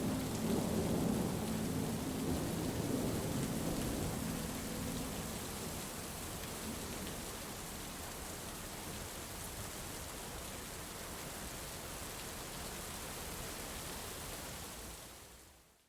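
Steady rain falling, an even hiss with a soft patter. It fades out to silence near the end. A soft held music chord is dying away under it in the first few seconds.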